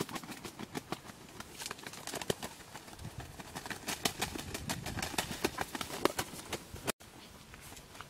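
Rustling and crackling of dry grass, leaves and twigs as a person moves through undergrowth, with irregular sharp snaps. It drops to a faint rustle after a cut about seven seconds in.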